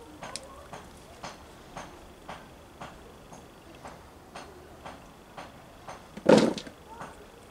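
A steady ticking, about two ticks a second, runs throughout. A little after six seconds in, a handful of freshly dug potatoes is dropped into a plastic bowl with a short thud, the loudest sound.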